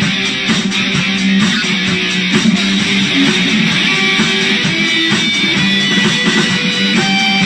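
Guitar music: strummed guitar chords with held notes ringing over them, playing steadily and loudly.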